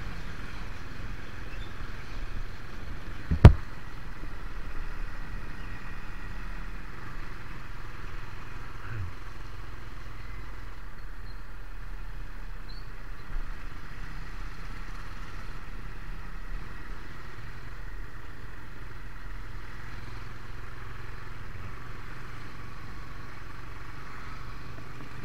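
Steady rumble and road noise of vehicle travel, with one sharp knock about three and a half seconds in.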